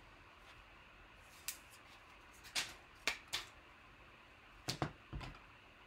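Trading cards being handled and slid into plastic sleeves and holders: several short, sharp plastic rustles and clicks in small clusters.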